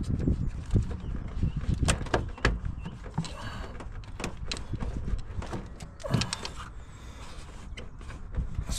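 Rubber dust boot being worked onto the back of a van headlight by hand: a run of small clicks and knocks with a few short rubbery squeaks.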